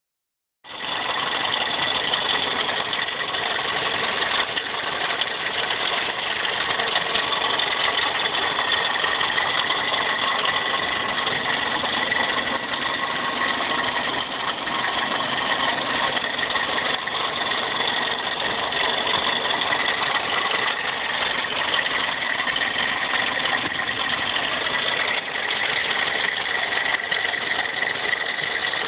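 Toyota Corolla running steadily with a rattling noise.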